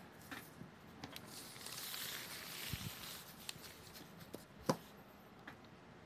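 A sheet of calligraphy paper rustling and sliding as it is pulled up across the table, with a few light taps and one sharper knock near the end.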